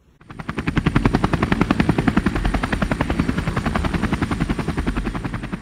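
Helicopter rotor blades chopping, fading in about a quarter second in, then a rapid, even pulse with a faint steady high whine above it.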